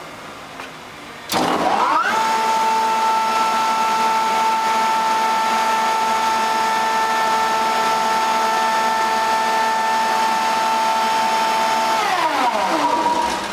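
Electric vacuum pump for a CNC router's hold-down table switched on a second in, its whine rising quickly to a steady high pitch. It runs evenly for about ten seconds, then is switched off near the end and winds down with a falling pitch.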